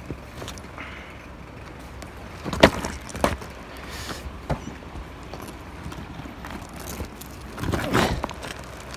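Scattered knocks and clatters of loose rock being shifted by hand and underfoot on rockslide debris. The sharpest knock comes about two and a half seconds in, with a few more after it and a cluster of knocks near the end.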